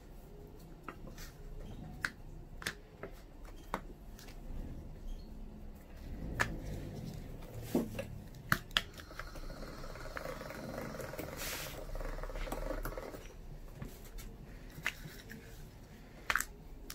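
Scattered light clicks and taps from a fluted plastic pastry mould being pressed and handled on a granite worktop, with a soft rubbing noise for a few seconds past the middle.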